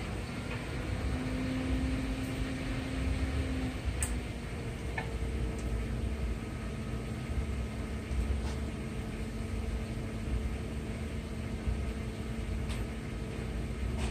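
Steady low mechanical hum of running machinery, with a few faint, brief metallic clicks as the steering knuckle and its hardware are handled.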